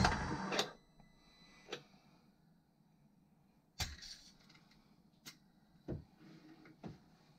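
Starter cranking of a Sea-Doo Rotax supercharged engine on a compression test stops within the first second. Then come a few light clicks, and about four seconds in a sharp click with a short hiss of air as the compression gauge is released.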